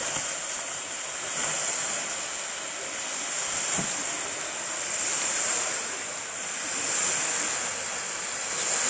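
Smoke canisters burning with a steady rushing hiss that swells and eases every couple of seconds.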